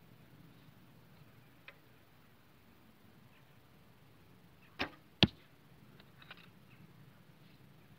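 A 40 lb Bearpaw Slick Stick traditional longbow shooting one arrow: the bowstring is released with a short thump almost five seconds in, and about half a second later comes a louder, sharper crack as the arrow strikes the target.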